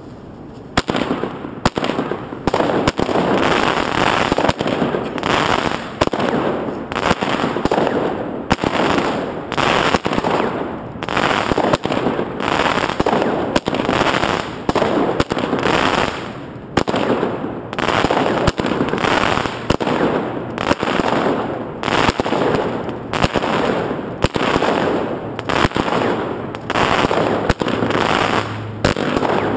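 Consumer fireworks cake (item DFC-1202) firing shot after shot, about one a second: each sharp launch thump is followed by a noisy burst as its white glitter stars break.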